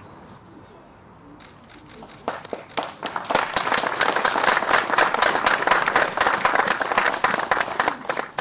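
A small group of people clapping, starting about two seconds in, quickly filling out into steady applause and thinning near the end.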